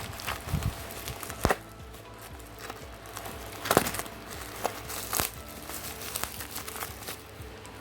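An SSD's retail packaging being handled and opened by hand: irregular crinkling and small clicks, with a few sharper snaps about a second and a half, nearly four, and five seconds in.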